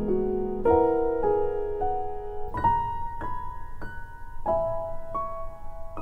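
Slow, gentle piano background music: sustained notes changing about every half second to second.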